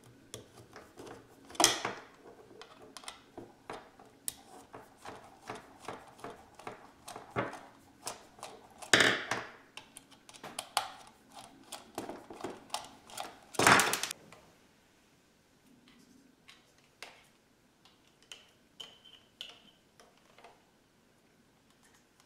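Small clicks and taps of a screwdriver turning screws out of an ebike display's plastic mounting bracket, with three louder knocks among them. After about 14 seconds only a few faint clicks remain.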